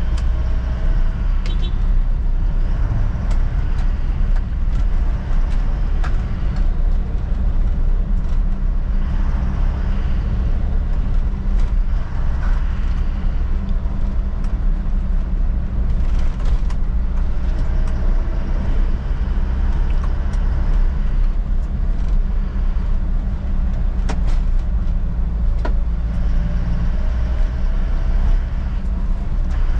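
Isuzu NLR light truck's diesel engine running steadily while driving, a constant low drone with road noise, heard from inside the cab.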